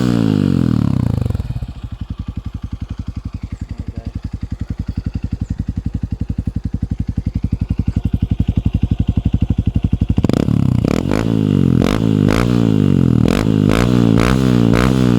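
Honda CRF150 dirt bike's single-cylinder four-stroke engine through an Exos X6 aftermarket exhaust pipe. Revs fall to a steady, even idle, then about ten seconds in the throttle is blipped repeatedly, the engine revving up and dropping back each time.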